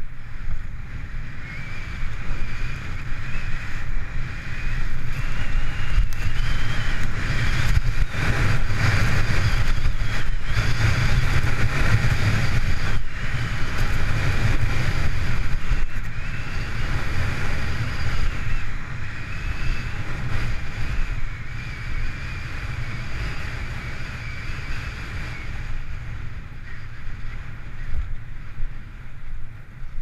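Wind rushing over an action camera's microphone during a ski run, with the skis hissing and scraping on groomed snow. It swells louder through the first half and eases off toward the end.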